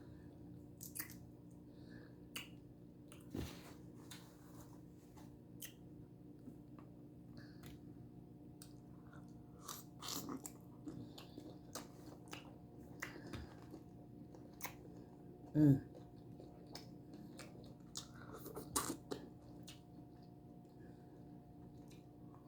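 Close-miked chewing and biting of head-on shrimp: scattered wet smacks, clicks and crunches at an irregular pace, the loudest about two-thirds of the way through, over a faint steady hum.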